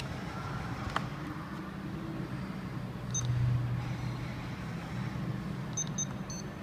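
VeriFone VX520 card terminal's keypad beeping as keys are pressed: short high beeps, one about three seconds in and two close together near the end, over a steady low hum. A single sharp click about a second in.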